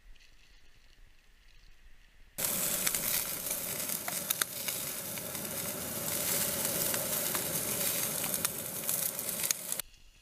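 Bratwursts sizzling as they cook, with scattered sharp pops. The sizzle starts abruptly a couple of seconds in and cuts off shortly before the end.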